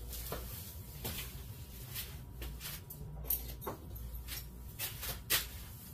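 Scattered light clicks and knocks, about eight in all, of someone rummaging for a pair of pliers among tools, over a low steady hum.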